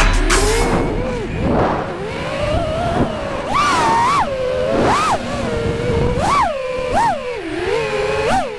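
FPV freestyle quadcopter's brushless motors and propellers whining, the pitch rising and falling with the throttle, with a series of quick sharp throttle punches in the second half.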